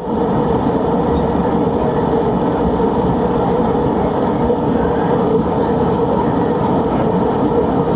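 Gas brazing torch flame burning steadily while heating refrigerator pipe joints of copper and iron: a continuous rushing noise with a faint steady hum.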